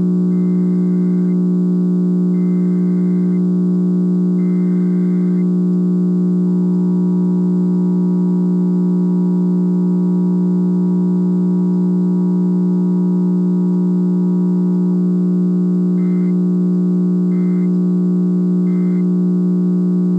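Emergency Alert System tones over FM radio. Three one-second warbling data bursts of the SAME header open the sequence. The steady two-tone attention signal follows for about eight seconds, then three short end-of-message bursts. A loud steady low hum runs under it all.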